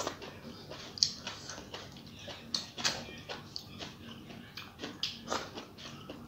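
Close, wet chewing and lip-smacking of a mouthful of rice and curry eaten by hand, as irregular clicks and smacks, along with the soft squish of fingers mixing rice on a steel plate.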